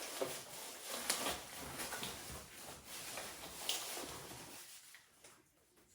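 Cardboard box and its packing padding being handled and rustled as the box is opened, with small knocks and clicks mixed in; it dies down about five seconds in.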